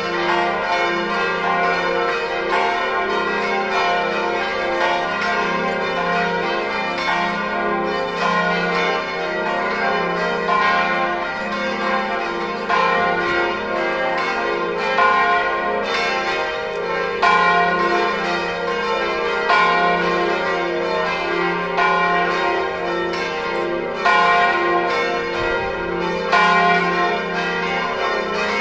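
The five largest bells of the Collegiata's nine-bell De Poli peal in F, electrically swung in an Italian festive ringing, with their strokes overlapping in a continuous ringing. In the second half a louder stroke stands out about every two seconds.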